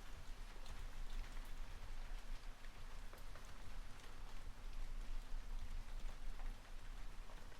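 Steady rain falling, with scattered light clicks and taps mixed in.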